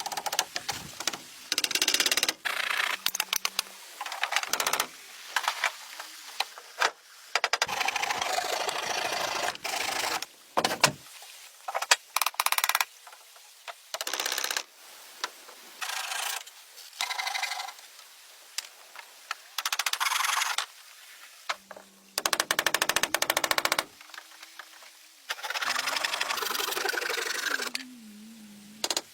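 Rapid mechanical clattering in repeated bursts of one to two seconds, with short pauses between them.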